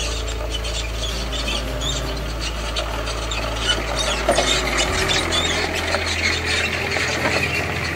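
Background music: low, sustained drone notes that shift down about five seconds in, under a dense, rasping, chirping layer.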